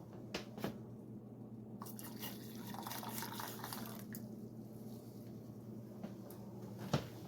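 Vinegar dripping and trickling in a jar, with a few light clicks and a steady low hum underneath.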